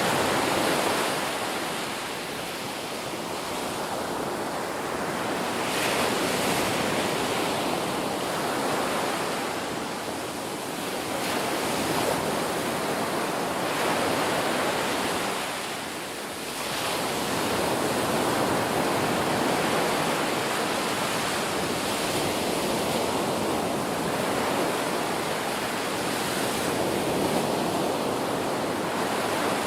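Ocean surf: waves breaking and washing up the shore in a steady hiss that swells and eases every few seconds.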